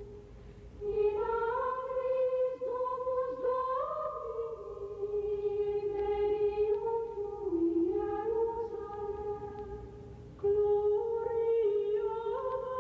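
A slow solo melody of long held notes in a high register, one line at a time. The phrases break off briefly just after the start and again about ten seconds in.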